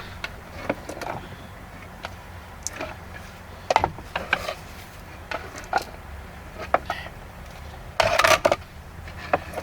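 Scattered clicks and knocks of things being handled, with a short, louder rattling clatter about eight seconds in.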